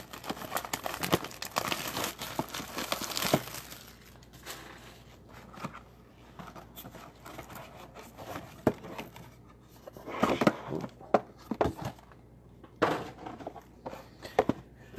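Plastic wrapping crinkling and tearing as a sealed trading-card hobby box is opened, densest for the first three seconds or so, then intermittent rustling, scraping and light taps of cardboard boxes being handled.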